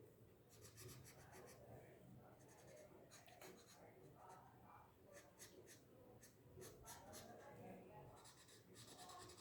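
Faint scratching of coloring strokes on paper, in several runs of quick back-and-forth strokes.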